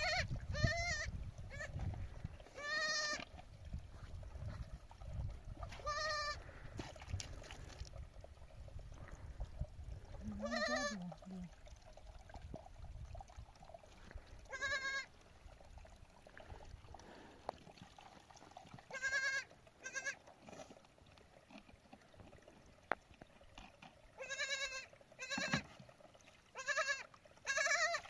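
Sheep bleating again and again: about ten short, wavering calls at irregular intervals, with a low rumble underneath in the first ten seconds or so.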